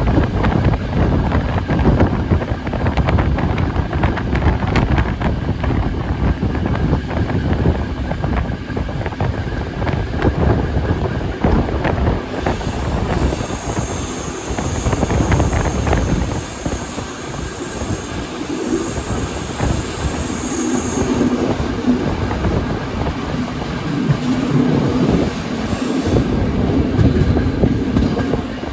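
Steam-hauled passenger train running, heard from an open coach window: the wheels clatter over the rails amid rushing air. From about halfway through, a high wheel squeal holds for several seconds.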